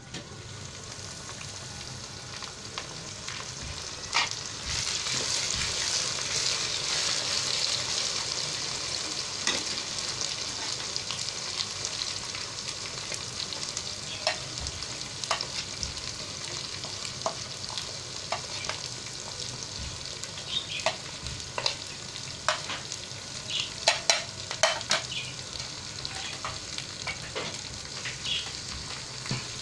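Onion and tomato masala frying in oil in a nonstick wok: a steady sizzle that swells about five seconds in. Through the second half a spoon clicks and taps against the pan, the sharpest taps about three quarters of the way through.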